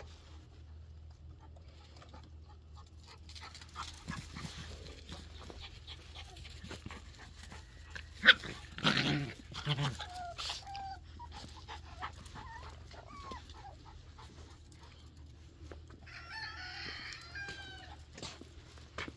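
Scattered short, high-pitched animal calls with gliding pitch, and a denser run of them lasting about two seconds near the end. A sharp knock about eight seconds in is followed by a brief loud rustling burst.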